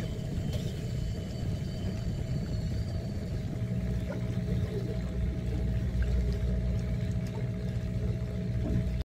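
Low, steady rumble of a fishing boat's engine running, with an even hum coming in about three and a half seconds in.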